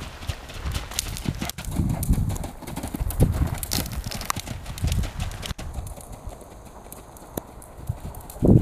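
Hoofbeats of a ridden grey horse on a sand arena's footing: a rhythmic run of dull thuds as it trots and canters. The beats turn fainter after about five and a half seconds.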